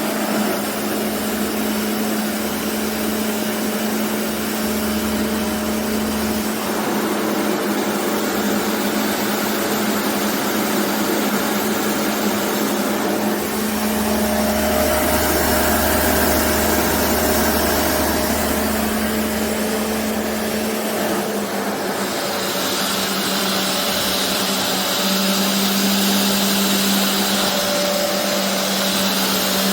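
BISSELL Revolution HydroSteam carpet cleaner running, a steady motor hum under a loud rush of suction. Its tone shifts a few times, about halfway through and again a little later.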